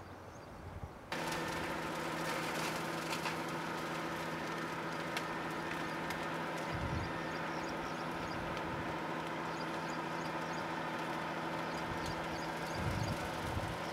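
A steady motor hum that starts abruptly about a second in and holds an even pitch.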